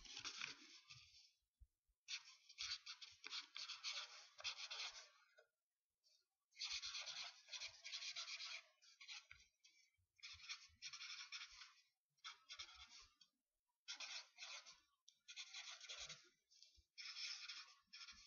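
Pen writing on a paper card: scratchy strokes in short runs, stopping briefly between words.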